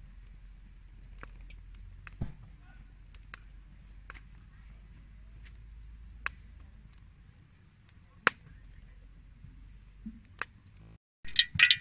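Small wood fire crackling under a steel wok: scattered sharp pops, one louder about eight seconds in, over a low steady rumble.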